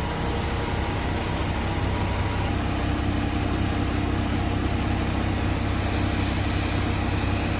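An engine running steadily with a low drone, its pitch holding even throughout.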